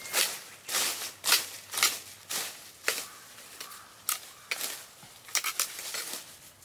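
Hand sickle cutting through weeds close to the ground: a quick run of crisp slicing, tearing strokes, about two a second.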